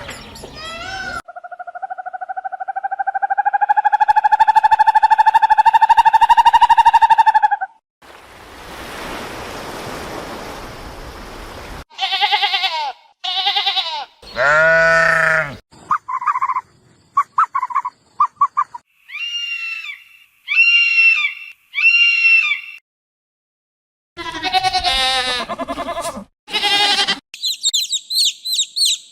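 A run of different animal calls cut one after another: a long, held pitched call that rises slightly, a stretch of breathy hiss-like noise, then a series of shorter calls and high chirps separated by brief silences.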